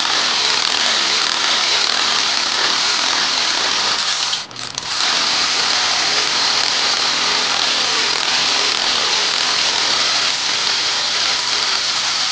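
A steady, loud hiss of background noise with no rhythm, breaking off briefly about four and a half seconds in.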